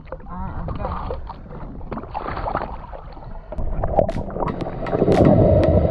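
Water sloshing against a jet ski's hull with a little wind. About three and a half seconds in, the sound turns louder and muffled as the camera goes underwater, with bubbling and many sharp clicks while a snorkeler swims.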